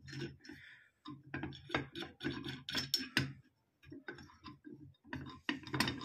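Irregular small metallic clicks and taps of hand-worked parts as a nut is threaded onto a bolt in a motorcycle reverse-gearbox lock assembly, with a brief pause about three and a half seconds in.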